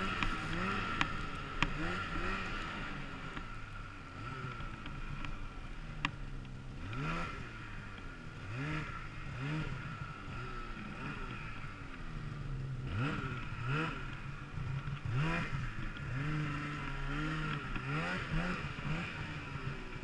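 Polaris Axys snowmobile engine revving up and down over and over as the rider works the throttle through deep powder, with a steady high whine underneath and a few sharp ticks.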